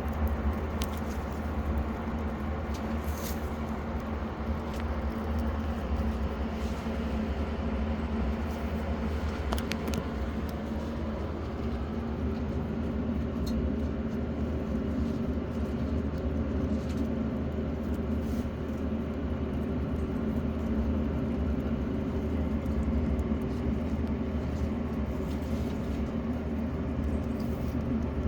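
Loud electric fan running steadily, a constant low hum and whir, with a few faint clicks on top.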